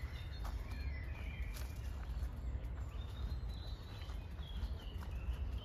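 Birds singing faintly in a few short chirps and warbles over a steady low rumble.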